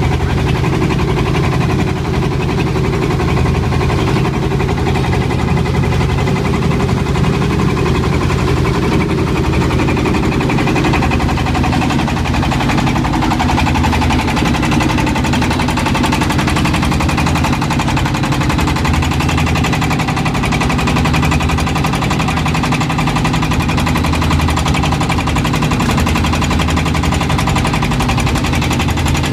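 A boat's engine running steadily under way, loud and unbroken, with a pulsing low end. Heard from inside the boat's wooden hull.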